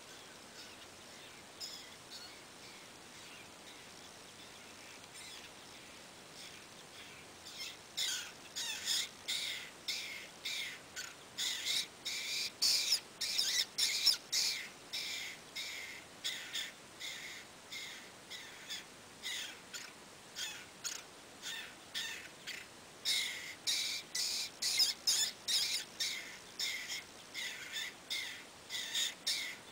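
Lewis's woodpeckers calling at a nest hole: a run of short, rapidly repeated calls, about two a second. It starts about eight seconds in and goes on from there, with a brief lull around 21 seconds.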